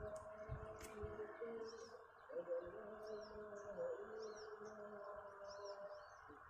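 Faint birdsong: small birds chirping in quick repeated high calls, over lower drawn-out tones and a steady hiss, with two sharp clicks in the first second.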